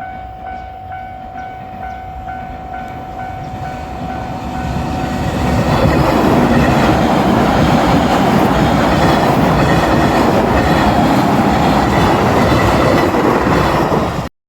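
Level-crossing warning bell clanging at about two and a half strikes a second. From about five seconds in, a JR Shikoku 8000 series electric limited express train passes over the crossing with loud, steady rolling noise that drowns the bell. The sound cuts off suddenly just before the end.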